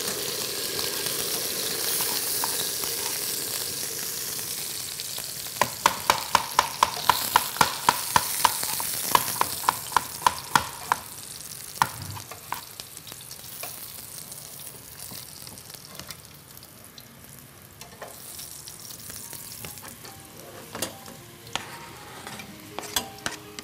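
Beef rib searing in hot fat in a frying pan, sizzling loudly. From about six seconds in, a quick run of sharp metallic clinks, about three a second for some five seconds, as metal tongs knock against the pan. The sizzling dies down over the second half, once the meat is lifted out, with only a few more clinks.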